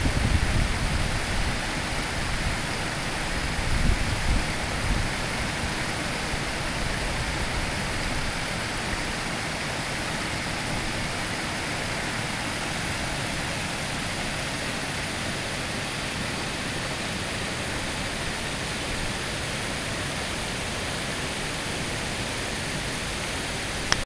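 Creek water pouring over a low rock ledge into a shallow pool: a steady rushing splash, with some low buffeting in the first few seconds.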